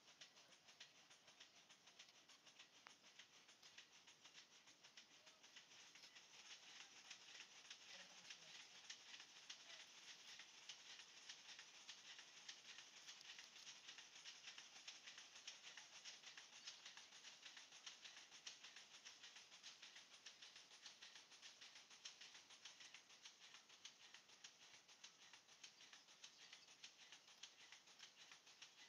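Near silence: a faint, steady crackling hiss in the background, slightly louder after about six seconds.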